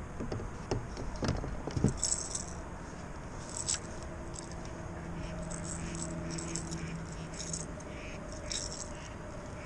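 A few hollow knocks as a kayak paddle is set down against the plastic hull, then light clicking and rattling as a baitcasting rod, reel and lure are handled.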